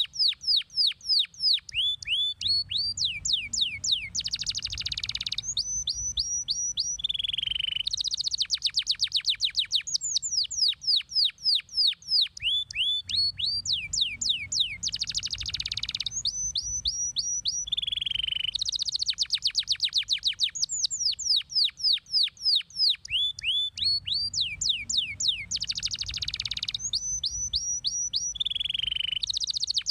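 Domestic canary singing continuously in fast trills: quick runs of falling whistled notes, a buzzy rattle and short strings of repeated high notes. The same song phrase comes round about every ten seconds.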